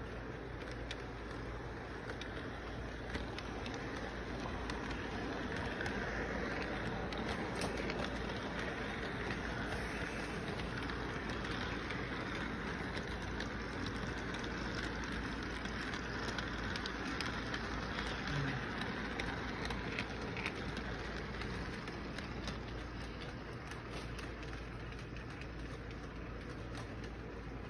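Electric model train running on its track: a steady rattling rumble of wheels over the rails, louder in the middle as the cars pass close by, then easing off.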